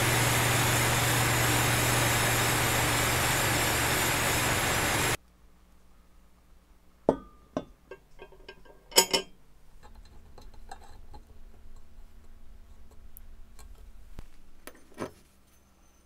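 Powder-coating spray gun blowing powder: a loud, steady hiss with a low hum under it that cuts off suddenly about five seconds in. After that come a few light metallic clicks and clinks.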